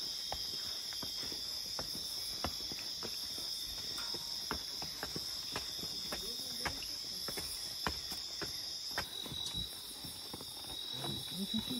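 Chorus of tropical rainforest insects at night: steady, high-pitched shrilling. The highest part of the chorus cuts off suddenly about nine seconds in, and a thinner note carries on. Irregular footsteps crunch on the leaf litter of the forest floor.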